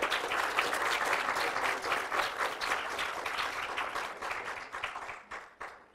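Audience applauding, the clapping thinning and fading away until it stops near the end.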